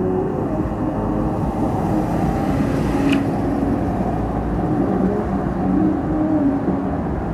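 Road vehicles passing, a low engine drone wavering in pitch over a dense, steady rumble.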